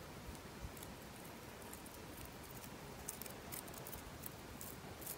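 Cheese being grated on a metal hand grater: a run of short scraping strokes, coming more often in the second half.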